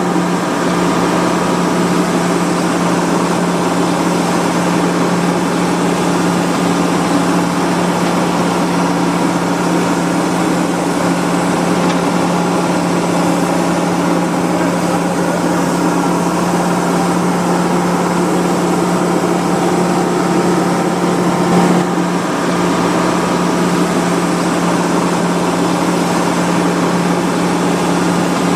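SANY SY75 excavator's diesel engine running at a steady speed with a constant hum, with one brief click about three-quarters of the way through.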